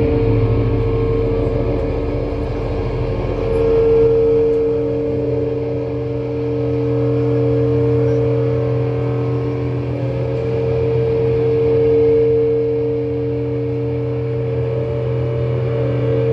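Loud, sustained amplified drone from a live metal band's stage rig: distorted guitar and bass tones held steady without drums. It swells louder about four seconds in and again about twelve seconds in.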